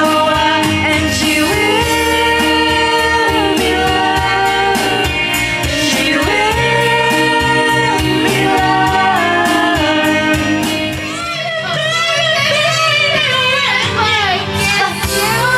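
Women singing karaoke into handheld microphones over a backing track, holding long sung notes. The backing track's bass drops out briefly about two-thirds of the way in.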